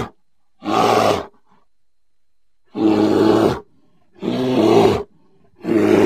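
A bear roaring repeatedly: about four short roars, each under a second long, with brief pauses between them.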